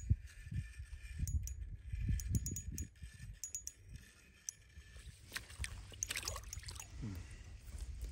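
Water splashing and gurgling in an ice-fishing hole about five seconds in, as a hooked panfish is pulled up through it. Before that there are light, sharp clicks and low handling bumps.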